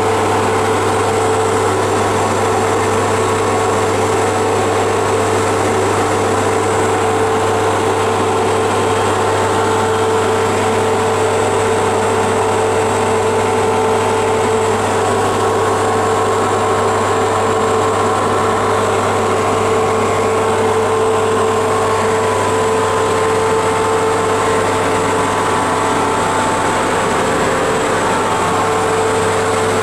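Steady, loud hum and whir of the equipment in the machine room of a series 461 electric locomotive: the main transformer's deep hum under the rushing of the cooling blowers, with a steady whining tone on top.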